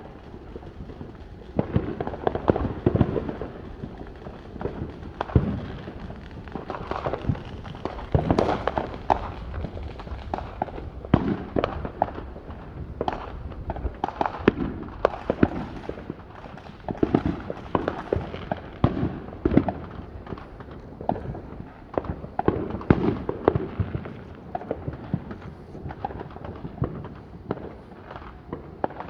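Fireworks going off continuously: a dense, irregular run of bangs and crackling pops, several a second at times, with deeper booms among them.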